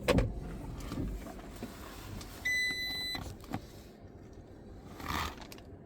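Ignition switched on in a Fiat Ducato–type van: a click, then a single steady electronic beep about two and a half seconds in, lasting under a second, followed by a few faint clicks and a brief rustle near the end.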